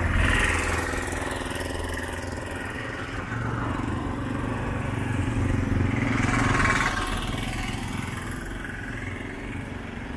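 Street traffic: motor vehicle engines running close by over a steady background of traffic noise, growing louder about six seconds in as one nears.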